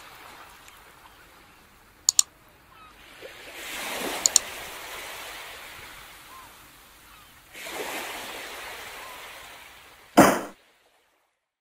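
Ocean surf washing up on a beach, swelling twice and fading, with short sharp double clicks about two seconds apart. A brief loud rush comes near the end.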